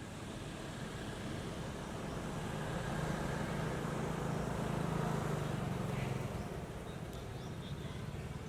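A motor vehicle passing, its engine hum and road noise swelling to a peak about five seconds in and then fading.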